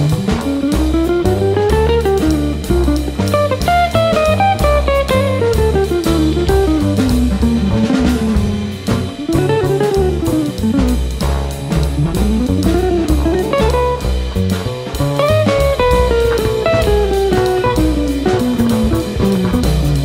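Jazz trio of guitar, bass and drum kit playing a jazz waltz: the guitar plays long rising and falling runs of notes over a low bass line, with the drums keeping time.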